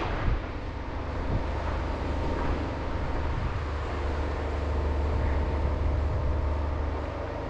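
Logging truck's diesel engine idling steadily: a deep low hum with faint steady tones above it.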